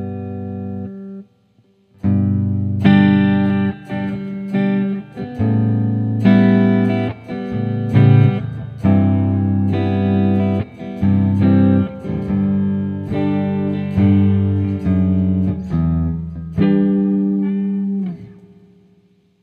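Electric guitar, an Epiphone Dot semi-hollow, played through a Mooer ShimVerb reverb pedal: a held chord cuts off about a second in, then after a brief pause a run of chords and single notes rings on, ending in a tail that fades away.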